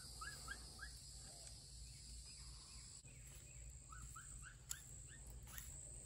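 Faint bird chirping: a run of four short rising notes about three a second, then a second run of four about four seconds in, over a steady low background hum.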